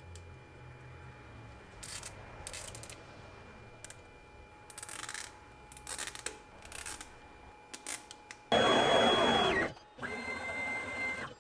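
Stepper motors of a CNC router jogging its gantry: two loud runs of mechanical whine, the first starting about two thirds of the way in with its pitch falling as the move slows, the second a steadier, lower whine. Before them come a few brief rustles and clicks.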